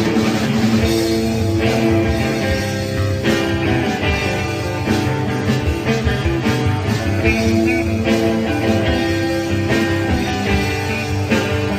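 Rock music playing as a backing track.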